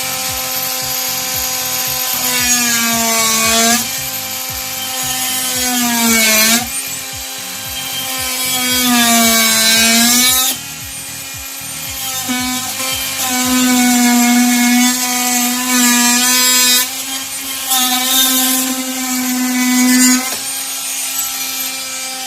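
Makita cordless oscillating multi-tool running with a Wellcut blade, cutting into material. Its high steady hum drops in pitch several times as the blade bites under load, then recovers, with a rasping cutting noise throughout.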